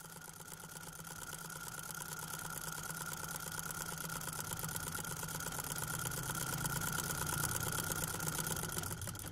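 A machine running steadily with a fast, even rattle and a steady whine, slowly growing louder.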